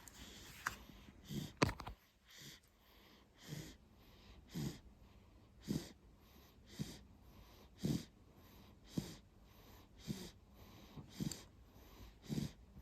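Soft little snores of a small sleeper, one short snoring breath about every second, steady and regular. A brief knock sounds once, nearly two seconds in.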